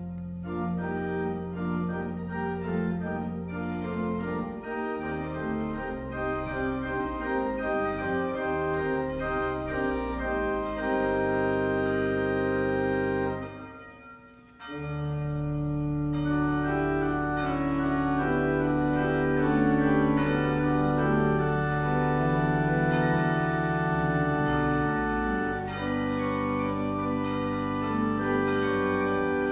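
Organ music: sustained chords with moving lines, breaking off for about a second near the middle, then resuming with long held chords.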